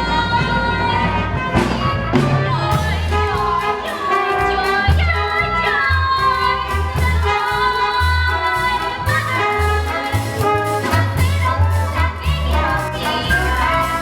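Musical-theatre song: voices singing over a band accompaniment with a bass line moving note by note.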